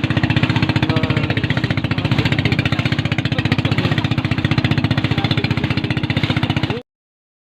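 Motorboat engine running with a steady, rapid pulsing beat; it cuts off suddenly near the end.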